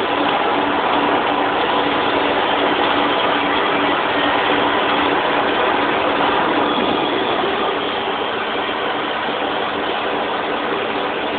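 Doosan PUMA SY2000 twin-spindle CNC lathe running while machining, a steady mechanical whir and hiss with faint steady tones through it. It drops a little in level about seven and a half seconds in.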